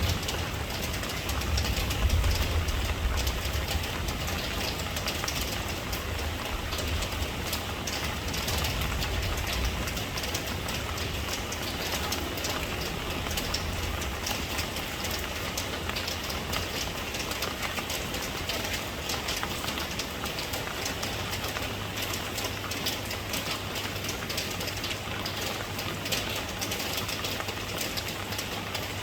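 Steady rain, a dense hiss of falling drops with many fine patters. A deep low rumble under it is strongest in the first ten seconds or so and fades out by the middle.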